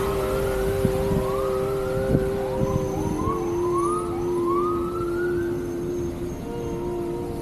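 A siren wails in a series of rising whoops, several in quick succession, over the steady drone of vehicles idling and creeping in traffic.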